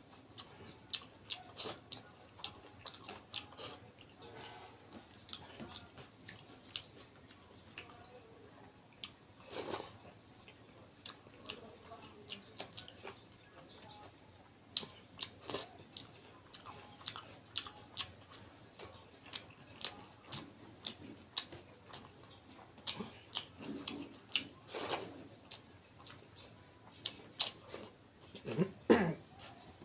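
A person chewing and smacking while eating rice with fish curry: a steady run of short mouth clicks and smacks, several a second, with a brief louder pitched sound near the end.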